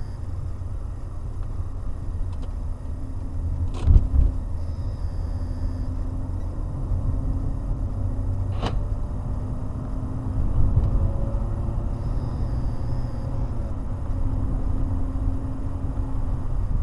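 Car driving in town traffic, heard from inside the cabin: a steady low rumble of the engine and tyres on the road. There is a thump about four seconds in and a sharp click a little past the middle.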